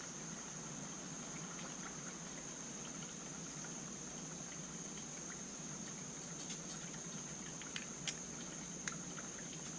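Faint, light clicks of a small screwdriver and metal parts being handled while a chainsaw carburetor is screwed back together, a few in the second half, over a steady background hiss with a high steady tone.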